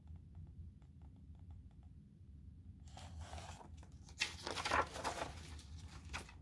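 Pages of a large hardcover picture book being turned by hand: paper rustling and crinkling from about three seconds in, loudest a little past the middle, after a few faint ticks.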